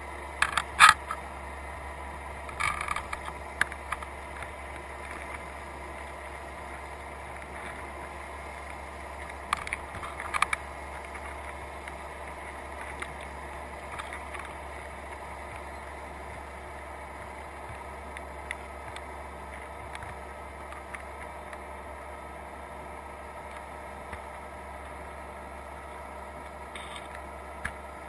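Underwater recording inside a crab trap: a steady low hum, with scattered sharp clicks and scrapes in the first few seconds and again around ten seconds in, as crabs' legs knock against the trap mesh and the camera housing.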